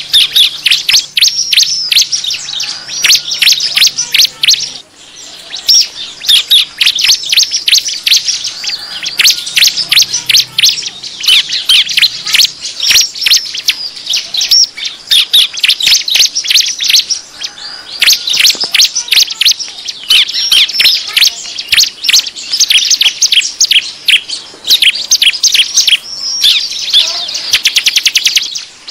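Bar-winged prinias (ciblek) chattering in a rapid, agitated run of high chirps, almost without pause: the excited 'ribut' call used to lure wild ciblek. There is a short break about five seconds in, and a fast even run of ticks near the end.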